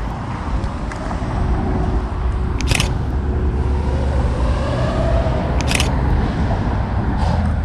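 Lamborghini Aventador SVJ's 6.5-litre V12 running with a steady deep rumble, its note rising and falling slightly about halfway through. Two short sharp clicks come about three seconds apart.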